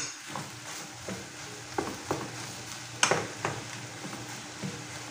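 Wooden spoon stirring diced dried beef, onion and tomato sautéing in a frying pan: a steady sizzle with several short knocks and scrapes of the spoon against the pan, the sharpest about three seconds in.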